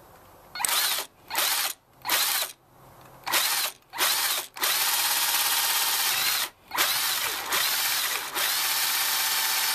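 Power drill with a half-inch spade bit boring through a plastic PVC pipe cap: five short bursts of the trigger, then two long steady runs of the motor with a brief stop between them about six and a half seconds in.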